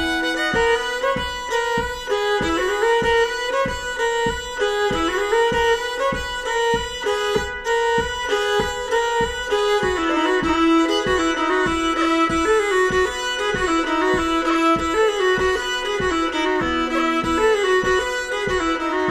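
Background music led by fiddle, a moving melody over a steady beat.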